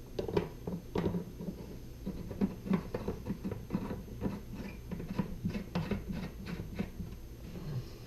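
Small parts of a single-handle Delta kitchen faucet clicking and knocking as they are handled and fitted back together, in an irregular run of light taps.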